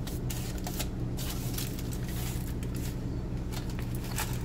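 Scattered light crinkles and clicks from handling a foil-lined baking tray of crumb-coated chicken, over a steady low hum.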